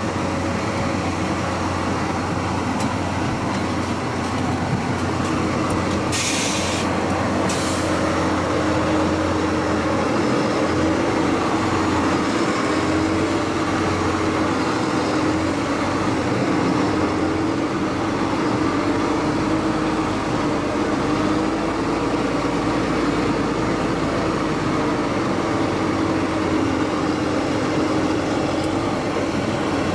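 Jenz HEM 561 Z wood chipper running steadily with a wavering hum as its crane handles wood, heard from the operator's cab. Two short hisses come about six and seven and a half seconds in.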